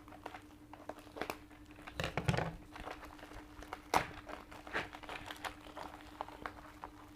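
Earbud box packaging being opened by hand: crinkling and scattered clicks and taps, with a denser rustle about two seconds in and a sharp click about four seconds in. A faint steady hum sits underneath.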